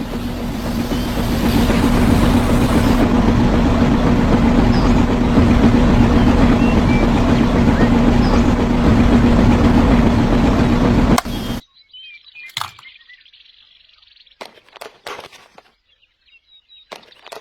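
A loud, steady mechanical hum over a rushing noise, which cuts off suddenly about 11 seconds in. After that, faint bird chirps and a few light clicks.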